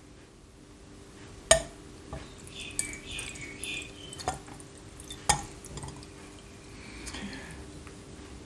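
Gin glugging out of an upturned glass bottle over large ice cubes in a glass, with two sharp glass clinks, about one and a half and five seconds in.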